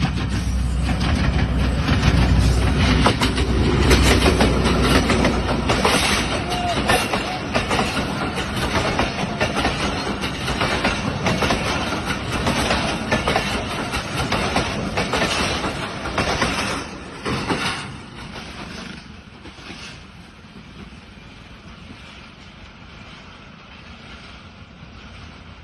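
Train running on the rails, its wheels clattering in a steady run of clicks over the rail joints, loud at first and then dropping away to a quieter rumble about 18 seconds in.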